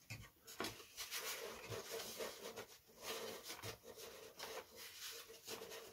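Balsa wood sheet rubbing and scraping against the balsa fuselage as it is handled and pressed into place. A faint, continuous scratchy rasp made of many short strokes.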